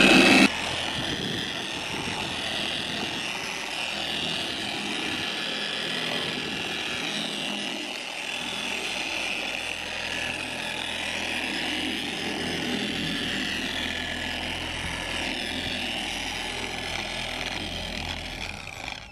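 Electric paint polisher (buffer) running as it cuts the old paint with compound: a steady motor whine whose pitch wanders a little as the pad is worked, dropping away near the end.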